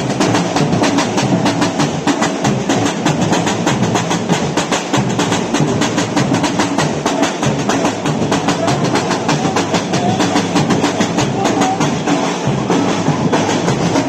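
Batucada samba drum ensemble (bateria) playing a steady, dense rhythm of many drum strikes.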